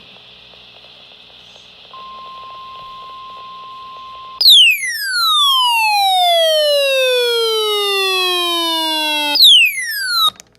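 Radio hiss, then a steady single electronic tone starts about two seconds in: the 1050 Hz NOAA Weather Radio warning alarm tone. A couple of seconds later a much louder, buzzy electronic alarm cuts in, sweeping steadily down in pitch for about five seconds. It then jumps back up high and falls again briefly before cutting off just before the end.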